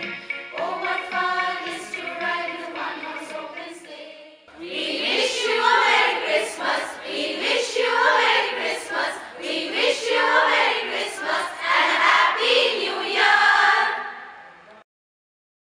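Choir singing a Christmas song. The singing softens and fades over the first four seconds, then comes back louder about four and a half seconds in, and stops abruptly shortly before the end.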